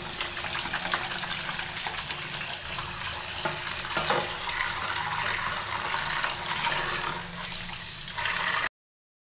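Tap water running into a plastic tub of fish pieces in a stainless steel sink, with splashing as a hand rubs and rinses the fish. The sound cuts off suddenly near the end.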